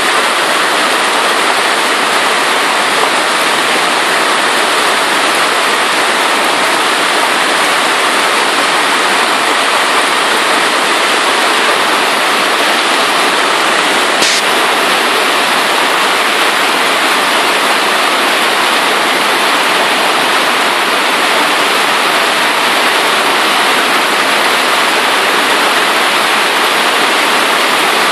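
Violent hailstorm: hailstones bigger than a one-franc coin pound the paved street and rooftops in a dense, steady rushing noise likened to a military jet passing overhead. A single sharp click comes about halfway through.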